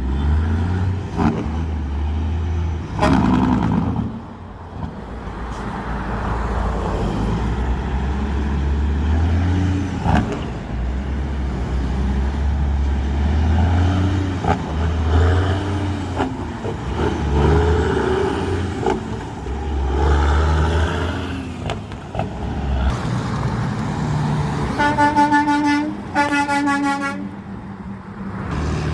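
A motor vehicle's engine running and revving up and down again and again, then two long horn blasts a little before the end.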